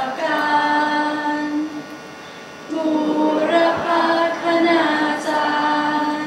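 Slow, chant-like singing of a Thai verse honouring teachers, with long held notes and a brief pause about two seconds in.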